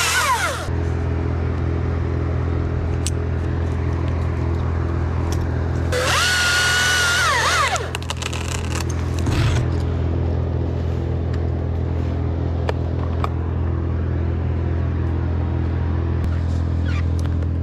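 Chainsaw idling steadily, revved into a cut for about two seconds about six seconds in, its whine falling as it drops back to idle. A few light knocks and a thud come from the work around it.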